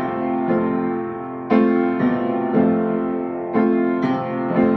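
Piano accompaniment playing the introduction: chords struck about once a second, each left to ring and fade before the next.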